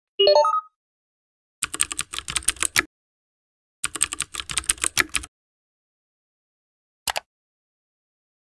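Computer keyboard typing: two runs of rapid key clicks, each a little over a second long, then a single click near the end. A short rising chime opens the sequence.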